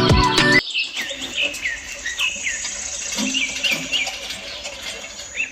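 Background music stops about half a second in, then small birds chirping: short, falling chirps repeated every fraction of a second.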